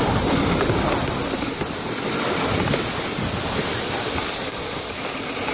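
Steady rushing hiss of a plastic sled sliding over packed snow, mixed with wind rushing over the microphone.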